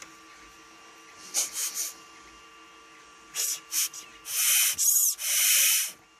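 Air blown in hissing bursts through a carburetor fuel passage to check that it is clear: three short puffs about a second in, three more after a pause, then three longer blasts near the end.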